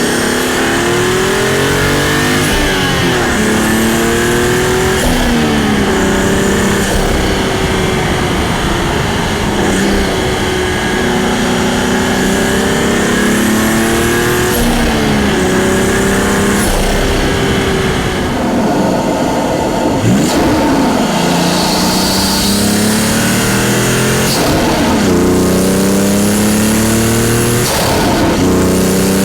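Toyota A90 Supra's turbocharged B58 straight-six accelerating through the gears of its six-speed manual, its pitch climbing and then dropping at each of several shifts. A brief turbo blow-off hiss comes between gear changes.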